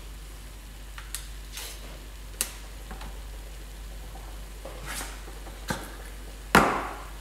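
Tins and a glass jar being handled and set down on a stainless steel worktop: scattered light clicks and knocks, with a louder knock near the end, over a steady low hum.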